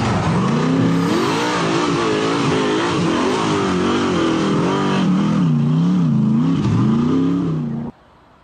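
Rock crawler buggy's engine revving hard under load on a steep dirt ledge, its pitch rising and falling again and again with the throttle. The sound cuts off abruptly near the end.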